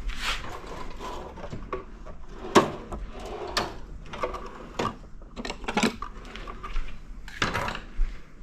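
Irregular clicks, knocks and rattles of hand tools being handled, as a screwdriver is swapped for a better one and worked at the switch housing. The loudest knock comes about two and a half seconds in.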